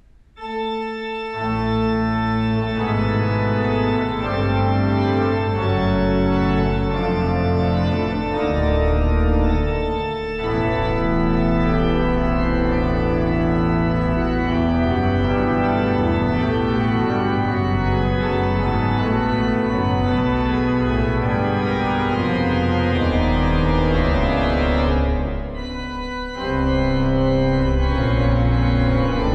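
The large pipe organ of St. Lorenz, Nuremberg, playing a loud chorale toccata with many sustained notes over a deep bass. A few soft notes open it, the full sound comes in about a second later, and it drops back briefly for a moment near the end before coming in full again.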